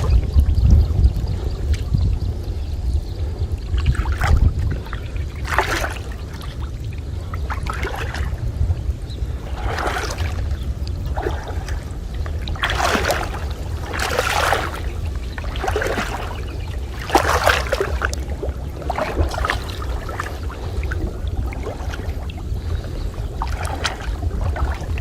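Water splashing in a series of short swishes every second or two, over a steady low rumble.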